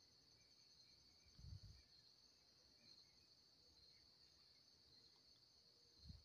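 Faint, steady high-pitched insect chorus, typical of crickets, with a low muffled thump about a second and a half in and another near the end.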